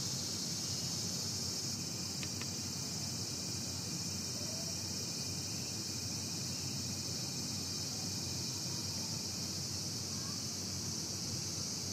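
Steady, high-pitched chorus of summer insects shrilling without a break, over a low background rumble.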